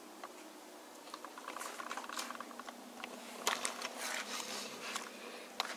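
Camera handling noise: soft rustling and a few sharp clicks and knocks as the camcorder is carried around the rifle by hand, with the clearest click about three and a half seconds in and another near the end.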